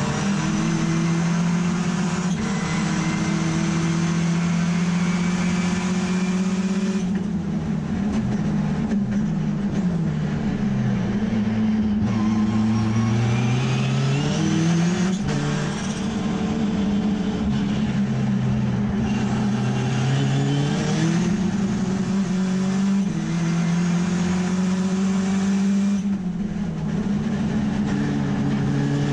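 Mazda RX3 race car's rotary engine driven hard on track, heard from inside the cockpit. The engine note holds high, falls away under lifting and braking a few times, and climbs again through the gears.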